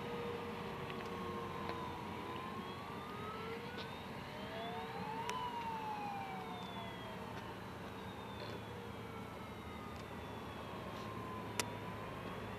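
Siren of a radio-controlled model fireboat, wailing slowly up and down with each rise and fall taking several seconds, with a few faint clicks.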